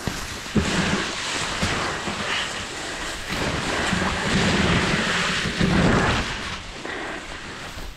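Tall grass brushing and scraping against the microphone as the camera pushes through it close to the ground. This makes a dense, rough rustling with uneven low rumbles of handling noise.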